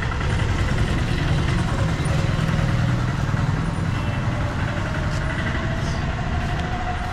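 Steady low rumble of a motor vehicle engine running, with a faint tone that rises slowly in the second half.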